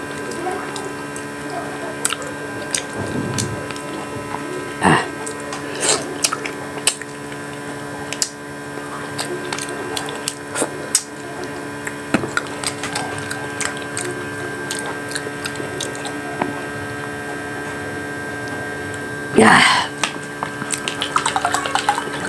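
Close-miked eating sounds: chewing, lip smacks and small clicks as grilled fish and rice are eaten by hand, over a steady electrical hum. Near the end there is a loud short noise, then juice is poured from a plastic pitcher into a glass.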